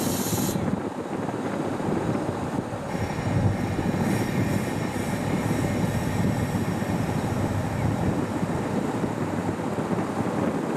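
Steam locomotive C58 239 working slowly during shunting, heard as a steady low rumble mixed with wind on the microphone. A short sharp hiss comes at the very start, and a fainter high hiss or squeal runs from about three to seven seconds in.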